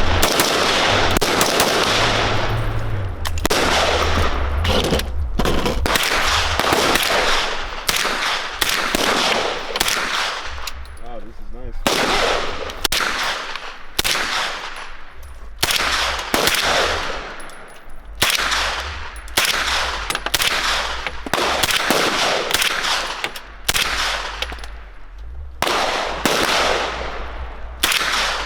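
Gunfire: a long run of single shots, irregularly spaced at roughly one a second, some in quick succession, each with a ringing tail.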